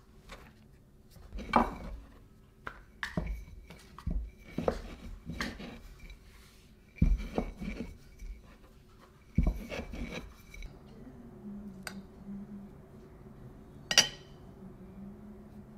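A glass bottle used as a rolling pin, rolling out dumpling wrappers on a floured wooden board: a string of rolling strokes and knocks of glass on wood. The strokes stop about two-thirds of the way through, and one sharp click follows near the end.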